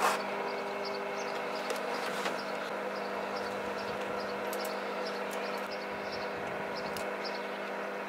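GoldStar microwave oven running, a steady electrical hum with fan noise, broken by a few faint sharp clicks.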